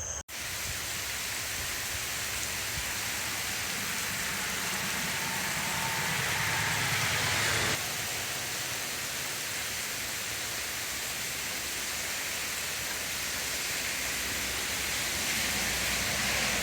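Steady rain falling, an even wash of noise that shifts slightly about halfway through.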